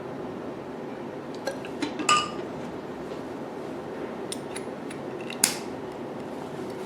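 Small hard parts of a facial machine's spray gun being handled and fitted: a few light clicks, a ringing clink about two seconds in and a sharp click about five and a half seconds in, over a steady low hum.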